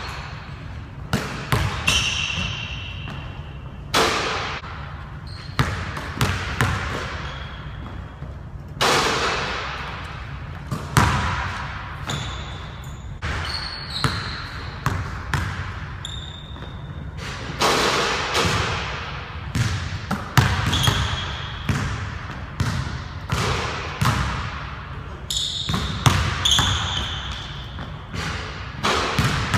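Basketball bouncing on a hardwood gym floor, each bounce echoing through the large hall, with short high sneaker squeaks now and then.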